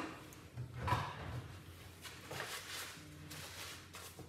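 Faint handling noises: scattered soft rustles and light knocks, with a brief low hum about three seconds in.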